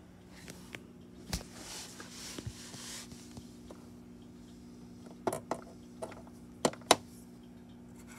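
Small plastic toy figures and accessories being handled on a toy house: a brief rustle, then several light clicks and taps between about five and seven seconds in.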